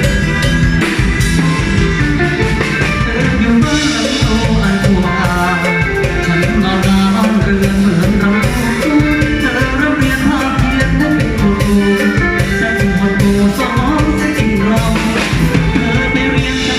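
Live band music through a PA system, with drum kit, bass and guitar playing a steady beat, and a lead vocal singing over it.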